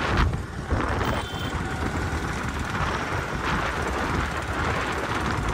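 Wind buffeting the microphone of a handheld phone on a moving motor scooter, a rumbling rush mixed with the scooter's running and road noise.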